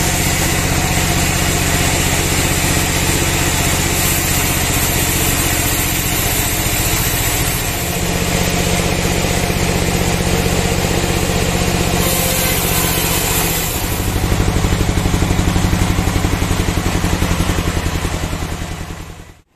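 Band sawmill running as its blade cuts through a kruing log, a steady loud machine drone with a low engine-like hum. About fourteen seconds in it turns louder and takes on a fast pulsing beat, then fades out at the very end.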